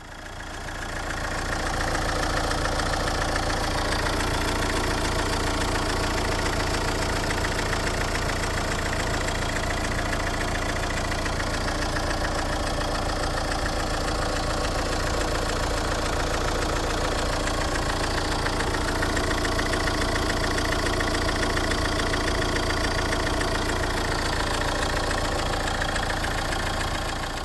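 Opel B20DTH 2.0 CDTI four-cylinder turbodiesel engine running steadily at idle. Its timing chain is stretched and has been rubbing on the block, which the owner says was close to breaking.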